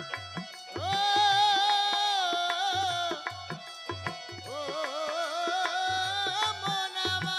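Baul folk music: a held, wavering melody line, loudest about a second in and again in the second half, over low barrel-drum strokes and sharp percussive clicks.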